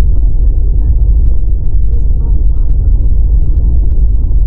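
Car cabin noise while driving: a loud, steady low rumble of road and engine noise, with scattered faint clicks.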